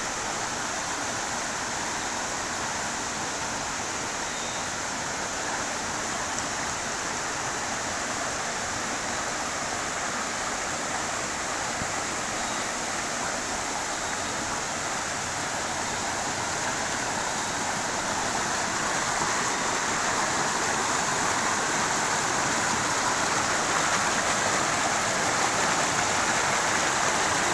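Small rocky stream rushing and splashing over stones: a steady hiss of running water that grows somewhat louder in the last third.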